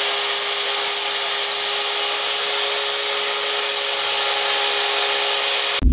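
Stick (MMA) welding arc from an Oshima MOS 200N inverter welder, crackling and hissing steadily as the electrode burns, with a steady hum under it. The sound cuts off suddenly near the end.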